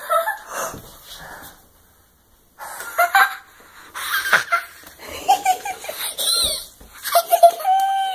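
Young children laughing and squealing with excitement in short bursts, with a brief lull a couple of seconds in and a long held squeal near the end.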